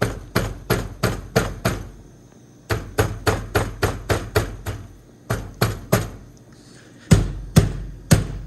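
Hard blows of a hand on a pinball machine's cabinet, in runs of several knocks at about three a second with short pauses between. The cabinet is being struck to test its tilt/nudge switch, which is not registering the hits.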